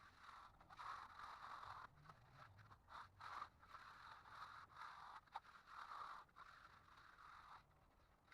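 Faint repeated scraping strokes, each about half a second to a second long with short breaks between, from a finishing tool being worked back and forth over wet concrete.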